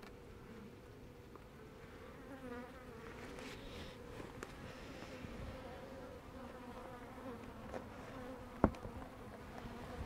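Honey bees buzzing around an open hive frame, a steady low hum that wavers in pitch as bees fly close. One sharp click comes near the end.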